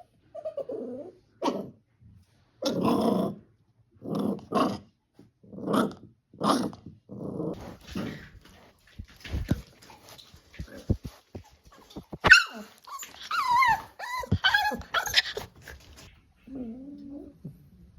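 Staffordshire bull terrier puppies play-growling in a string of short, rough bursts. A few sharp clicks follow, then high, sliding whines and squeals for several seconds, and a lower whining call near the end.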